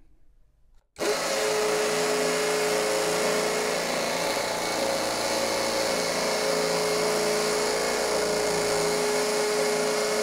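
Ingco 20V cordless impact drill drilling into a concrete brick on a part-charged battery, starting about a second in and running steadily at full speed with a constant whine.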